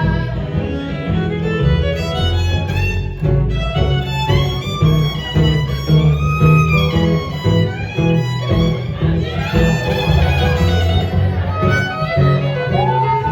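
Live acoustic band playing an instrumental break, a fiddle carrying the melody with sliding, bending notes over guitar and a steady bass line, recorded on a cell phone.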